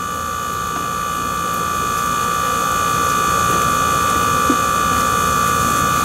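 Honey bees buzzing in a steady, many-toned drone around an opened hive, slowly growing louder, with a soft knock about four and a half seconds in.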